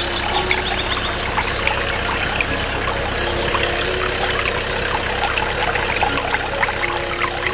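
Juice trickling and pouring steadily from a miniature DIY juice machine's spout into a small plastic cup.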